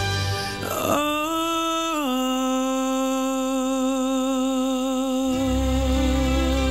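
Male singer holding one long sung note with light vibrato over soft accompaniment, stepping down slightly about two seconds in; deep low accompaniment comes in near the end.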